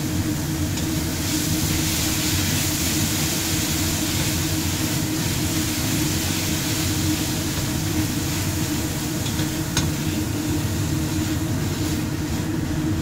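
Papaya leaves, grated-coconut spice paste and salted fish stir-fried in oil, sizzling steadily as they are stirred, with a few light clicks of the utensil against the pan over a steady low hum.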